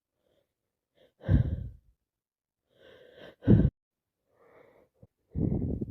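A woman with a heavy cold gasping and catching her breath in several short, voiced bursts as a sneeze builds up. The two loudest come about a second in and about halfway through, and a longer breathy one starts near the end.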